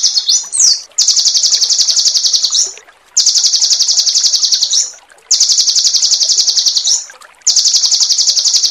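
A songbird singing a high, rapid trill of many short repeated notes, four phrases of nearly two seconds each with short pauses between: a 'roll tembak' (rolling shot) phrase of the kind used as masteran song for training cage birds.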